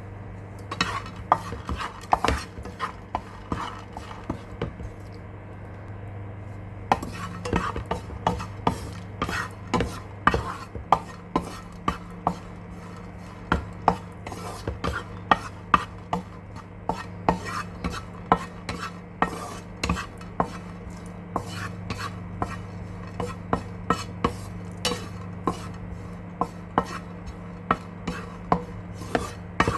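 A spatula stirring raisins frying in ghee in a pan, with irregular clicks and scrapes against the pan, over a steady low hum.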